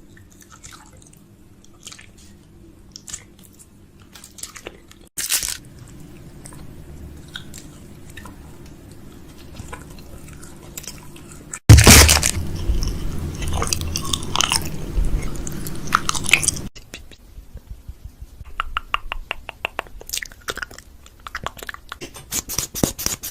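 Crinkling packaging, clicks and clatter of food containers being unpacked and set into a refrigerator, in several short takes. A louder, busier stretch of rustling and knocking comes about halfway through, and a quick run of even ticks follows it.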